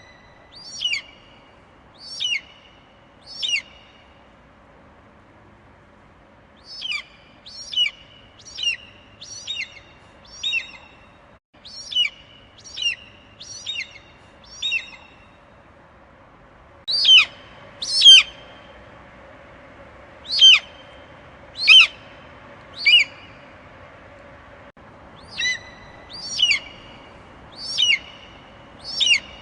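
An eagle calling: short, high, downward-sliding cries in bouts of three to eight, about a second apart, with pauses of a few seconds between bouts.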